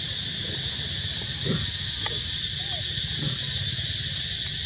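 Steady, high insect chorus of crickets or cicadas, with a few faint, short calls that rise and fall in pitch, scattered through it.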